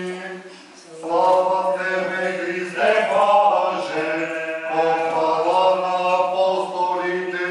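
Eastern Orthodox liturgical chant sung in long, drawn-out phrases over a steady low held note, with a short break about a second in.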